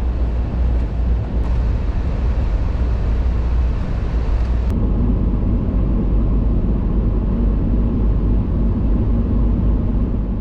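Pickup truck driving, heard from inside the cab as a steady, loud rumble of engine and road noise. About halfway through, the sound changes: the hiss thins out and a steadier low hum comes in.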